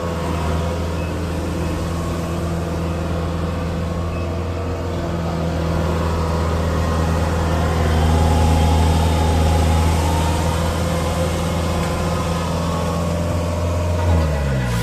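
Engine of a corn harvester running steadily with a low hum, a higher whine rising and falling in the middle; near the end the engine note drops.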